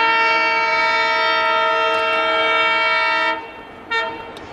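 Indian Railways diesel locomotive air horn sounding one long blast of about three and a half seconds, then a short toot about four seconds in, over the running noise of a train.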